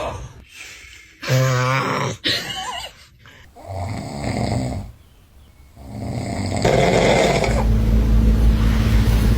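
A man snoring loudly: several separate snores with breathy gaps between them, then, from a little past halfway, one long, steady, deep snore.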